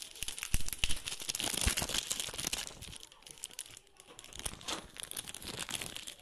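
Clear polyethylene (LDPE) plastic bag crinkling and rustling as hands pull it off a speaker. It comes in crackly bursts with a lull about three to four seconds in, and a couple of low handling knocks come in the first two seconds.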